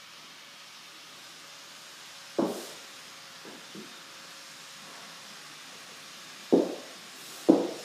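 Footsteps on a bare floor in an empty, unfinished house, each step with a short echo: one step about two and a half seconds in, two faint ones just after, then two louder steps near the end, about a second apart.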